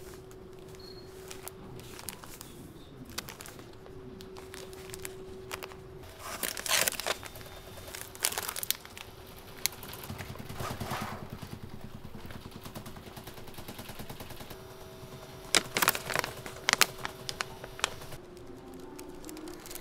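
Plastic packaging crinkling and crackling in several bursts as wrapped packs are picked up and handled, over a steady hum.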